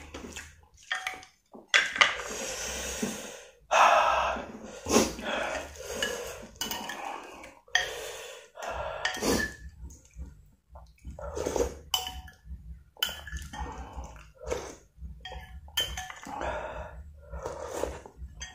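Close-up eating sounds: a metal spoon clinking and scraping in a ceramic bowl of noodle soup, with slurps from the spoon and noisy, irregular mouth sounds in between.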